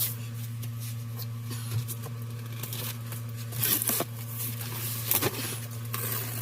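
Cardboard shipping box being opened: tape cut or torn and the flaps and contents handled, giving scattered short scrapes, rustles and clicks over a steady low hum.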